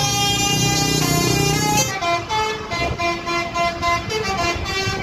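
Bus telolet basuri horn playing a melody, first in long held notes, then from about two seconds in in shorter, quicker notes with brief gaps.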